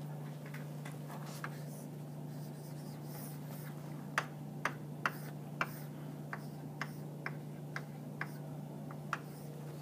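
A series of about a dozen short, sharp clicks, unevenly spaced about half a second apart, starting about four seconds in, over a steady low electrical hum.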